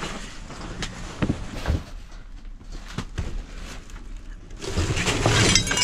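Boxes being handled and shifted: a few scattered knocks, then about four and a half seconds in a louder rustling clatter with glass clinking inside.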